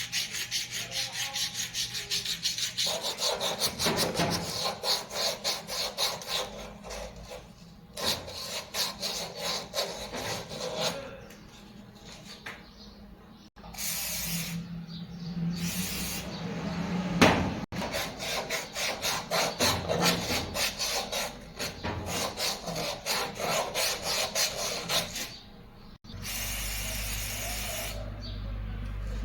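Rapid back-and-forth rasping strokes, like a file or abrasive worked by hand over a part, several strokes a second in runs broken by short pauses. Near the end a steady hum with a hiss takes over.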